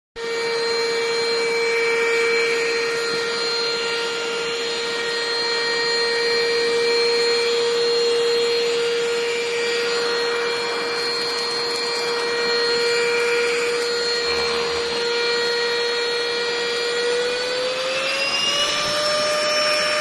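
Enolux LPMY-017 handheld dust-mite vacuum cleaner running as it is passed over bedding: a steady motor whine over the hiss of air, its pitch rising slightly near the end.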